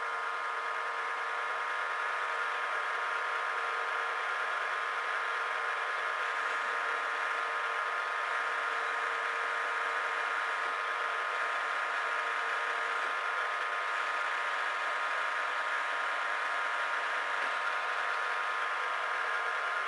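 Warco Major GH geared-head mill-drill running steadily with an even whine, several steady tones at once, while a twist drill bores down through a clamped metal plate. It cuts off at the very end.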